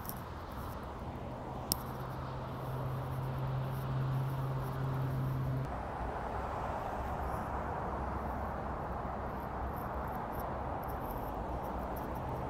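Steady outdoor background noise with a low hum that stops suddenly a little before the middle. A single sharp click about two seconds in, and faint scattered high ticks.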